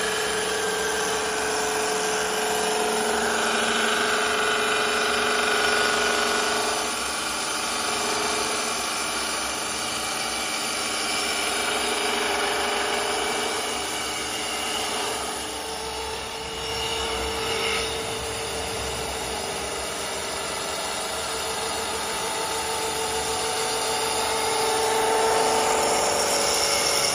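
STYLECNC STL1530-A wood CNC lathe running: the spindle turns a wooden baluster blank while a spinning brush sanding wheel works along the turned piece. The result is a steady machine whine and brushing noise whose pitch shifts a few times.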